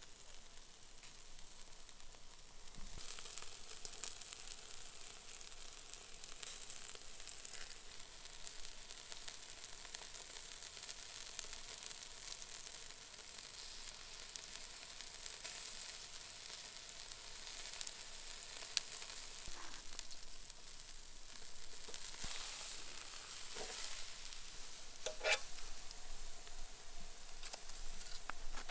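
Pork spare ribs sizzling steadily on a charcoal grill, with scattered small crackles and one louder pop about three-quarters of the way through.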